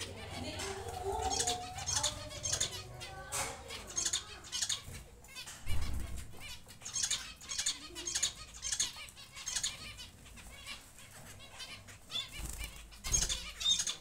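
Diamond doves fluttering their wings inside a wire cage: a run of short, irregular wing flaps, with a louder bump about six seconds in.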